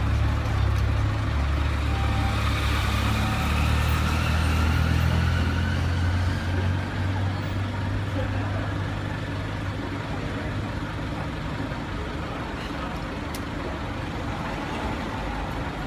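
Street traffic: a heavy vehicle's engine rumble with a rising whine for about the first six seconds, then fading to steadier, quieter road noise.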